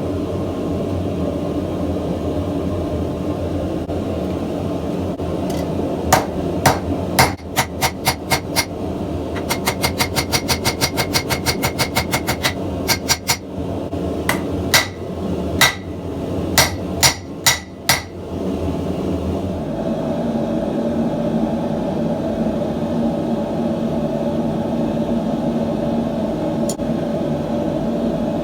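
Hand hammer striking metal on an anvil with a bright ring: scattered single blows, then a fast run of about six strikes a second, then more spaced blows before stopping. A steady rushing noise runs underneath, like a forge burner.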